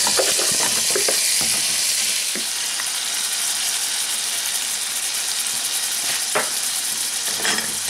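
Diced raw chicken sizzling in hot butter in a frying pan, a steady frying hiss as it hits the fat, with a few short knocks in the first second and a half and two more near the end.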